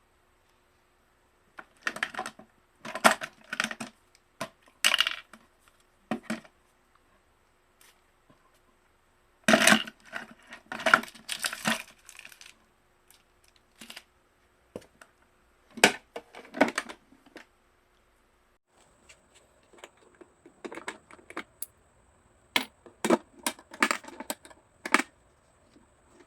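Hard plastic pieces and tools being handled at a workbench: irregular clusters of sharp clicks, knocks and short scrapes, with pauses of a second or more between them.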